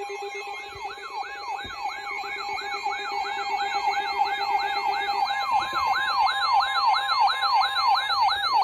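Electronic alert siren sweeping up and down in pitch about three to four times a second over a steady tone, sounding the attention signal for a severe thunderstorm warning. A lower steady tone under it stops a little past halfway.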